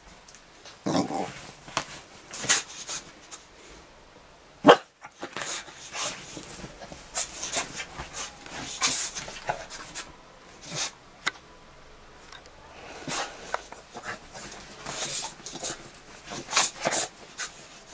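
Boxer dog rolling and rubbing itself on a bed after its bath: irregular rustling of the bedding with short dog grunts and whimpers, and one sharp knock about four and a half seconds in.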